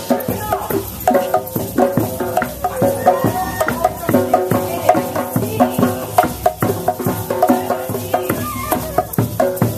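Drum circle music: many hand drums and shakers keeping a steady, even beat, with short melodic notes over it.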